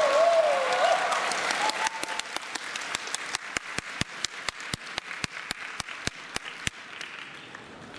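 Audience applause dying down, then settling into a run of rhythmic clapping at about three to four claps a second that stops a second before the end.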